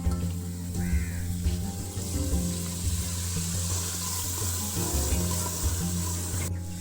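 Water running from a tap into a sink, a steady hiss that builds over the middle and cuts off suddenly near the end, under background music.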